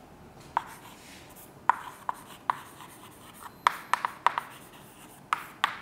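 Chalk writing on a blackboard: a string of sharp, irregular taps as the chalk strikes the board, with faint scraping between strokes.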